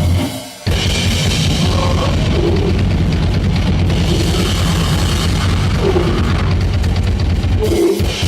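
Noisecore band playing live: a short hit, a brief stop, then about a second in a dense wall of fast drums and distorted noise.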